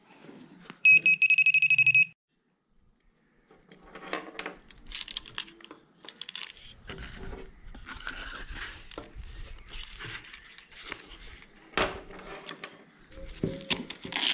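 GP-Pointer pinpointer giving a rapid, high-pitched beeping for about a second, starting about a second in. After a short gap, rustling and light clicks as the pinpointer is handled and pushed into its fabric belt holster, with a louder rustle at the end.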